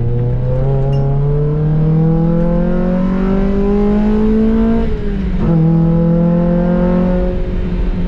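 NB Mazda Miata four-cylinder engine through an M2 Motorsport exhaust, accelerating with rising pitch. About five seconds in there is a quick upshift, the pitch drops, and then the engine pulls again.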